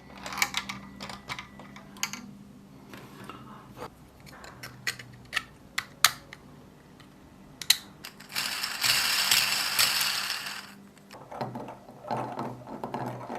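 3D-printed plastic fidget toys being handled and worked: scattered sharp plastic clicks and clacks, with a dense run of continuous rattling clicking for about two seconds past the middle.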